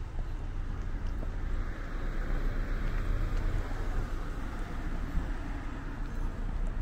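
A car passing on the road: tyre and engine noise that swells about two seconds in and fades again, over a steady low traffic rumble.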